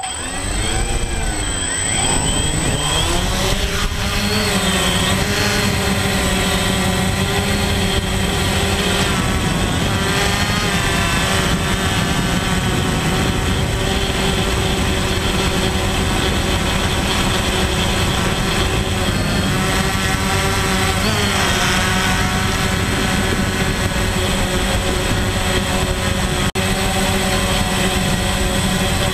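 DJI Phantom quadcopter's electric motors and propellers spinning up at takeoff, the pitch sweeping up and down over the first couple of seconds, then settling into a steady buzzing hum that shifts in pitch as the drone climbs and manoeuvres. Heard close up from the camera carried on the drone.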